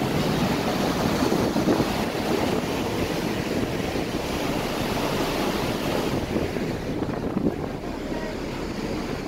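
Wind buffeting the microphone and water rushing past the hull on the open deck of a ferry under way: a steady, even rush of noise.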